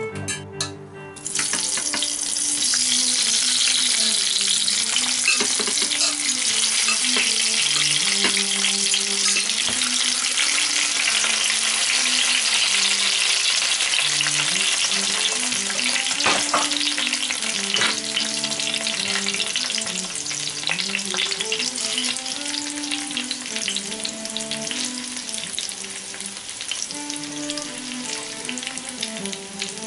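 Parboiled potato chunks sizzling in very hot melted pork lard in a glass baking dish. The sizzle starts about a second in, as they go into the fat, and eases slightly toward the end. Soft background music plays underneath.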